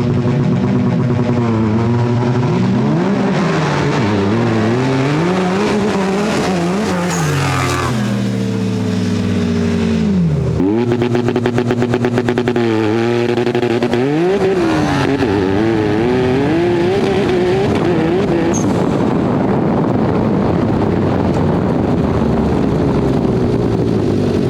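Turbocharged homemade off-road buggy engine revving hard, its pitch climbing and dropping again and again, with a sudden deep dip about ten seconds in before it climbs once more, then settling into a steadier high note for the last third.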